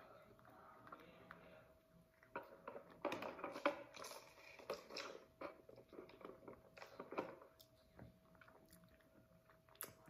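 A person chewing a mouthful of burger: irregular wet clicks and light crunches, busiest about three to five seconds in.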